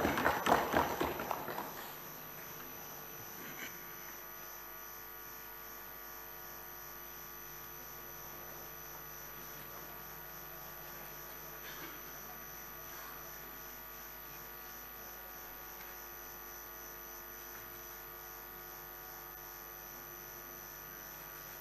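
Steady electrical mains hum with a faint buzz, many fixed tones held unchanged. A dense burst of noise dies away about two seconds in.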